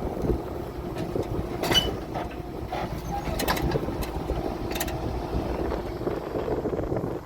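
Farm tractor engine running steadily while towing a combine header on its cart, with a few sharp rattles and clanks about two, three and a half and five seconds in.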